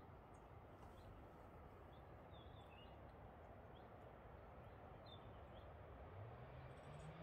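Near silence outdoors: faint, scattered short bird chirps over quiet background noise, with a faint low hum that rises in pitch about six seconds in.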